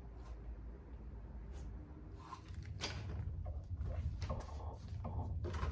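Scattered light knocks and handling noises over a low, steady rumble, busier in the second half.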